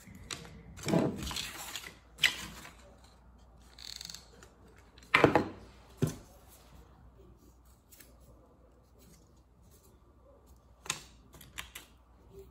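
Stiff construction paper being handled and folded: a string of short rustles and crinkles, the loudest about a second, two and five seconds in, then a few light ticks near the end.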